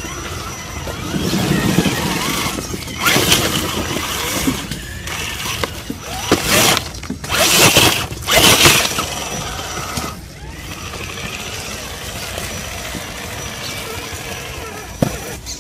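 Traxxas TRX-4 scale RC crawler driving over rock: its electric motor and geartrain whine while the tyres scrabble on stone, with several short, loud bursts of noise in the middle few seconds.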